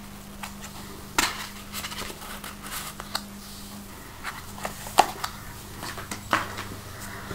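Tarot cards drawn from a deck and laid down on a tile floor: scattered light taps and card-handling clicks, the sharpest about five seconds in, over a faint steady low hum.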